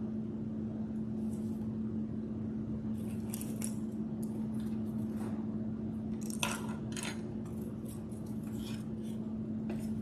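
Light clicks, taps and scrapes of craft supplies handled on a paper-covered tabletop: a sheet of card laid down and a white paint tray picked up and set down. The sharpest knock comes a little past halfway. A steady low hum runs underneath.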